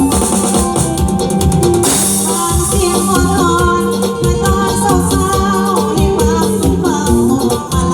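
Thai lae song performed live with a band: a steady drum beat under a wavering sung melody, with a cymbal crash about two seconds in.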